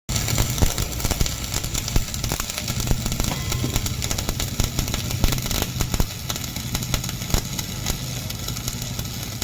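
Stick arc welding on a truck chassis rail: a continuous, irregular crackle of the arc over a low steady hum.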